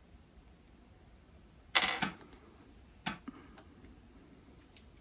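Small electrical parts handled at a wooden table: one sharp clatter with a brief metallic ring about two seconds in, then two light clicks about a second later, as a spade connector is fitted onto a fuse-holder wire.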